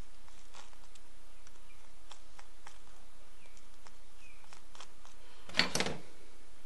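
Light scattered clicks and taps of a small brush-cutter carburetor being handled and fitted together by hand, with a brief, louder clatter of a few knocks near the end as a screwdriver is laid on the metal workbench.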